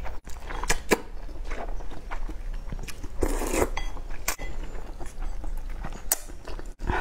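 A person slurping and chewing noodles from a bowl of spicy malatang broth: short wet clicks and smacks throughout, with a longer, louder slurp about three seconds in.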